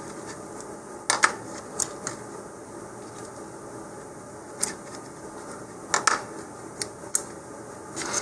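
Light clicks and taps of hands handling clear plastic model rocket fins while pressing and lifting a vinyl decal: several short sharp ticks, two of them in quick pairs, over a steady faint hiss.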